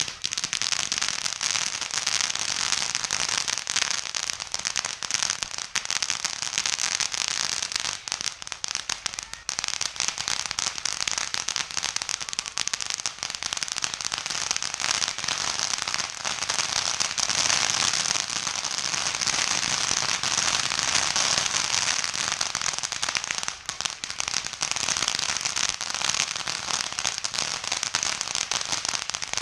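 Ground fountain firework spraying sparks: a continuous dense crackling and hissing.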